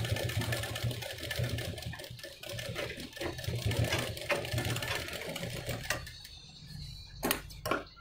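Straight-stitch sewing machine running in spurts, stitching a zip seam and back-tacking to lock it. It stops about six seconds in, followed by a couple of sharp snips near the end as scissors trim the thread.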